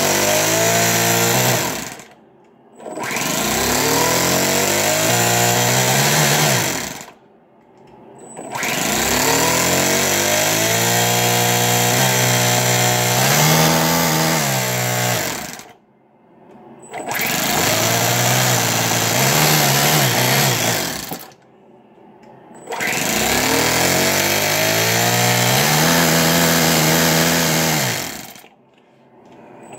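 Electric starter cranking the Toyan FS-S100A single-cylinder four-stroke model engine in five bursts of several seconds each, with short pauses between: repeated attempts to start the engine. Each burst rises in pitch as the starter spins up, then holds steady.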